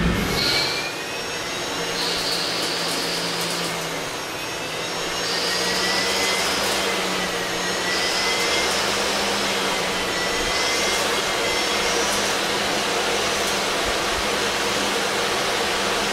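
CNC lathe turning a spinning metal workpiece: a steady rushing machine hiss with faint whining tones from the spindle and cut that shift in pitch now and then.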